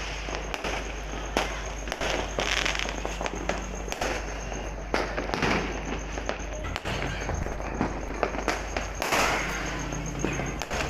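Fireworks going off nonstop: many sharp bangs and firecracker pops at irregular intervals, overlapping with crackling.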